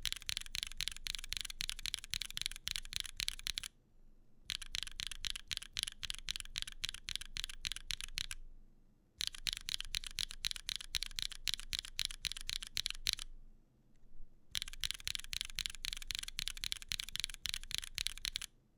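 Fast typing on a Neo65 Cu mechanical keyboard fitted with Toro Studio Torrero light tactile switches (POM stems, PA66 housings), giving a loud, clacky sound. There are four runs of rapid keystrokes, each about four seconds long, with brief pauses between them.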